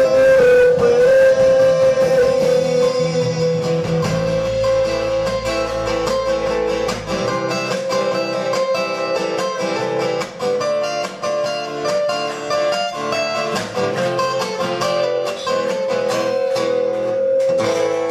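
Live acoustic folk band playing an instrumental passage: acoustic guitars picking over an accordion holding a long, steady note.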